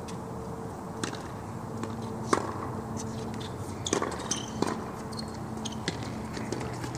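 Tennis ball hit back and forth with rackets on a hard court: sharp pops of racket strikes and ball bounces every second or so, the loudest about two and a half seconds in, over a faint steady hum.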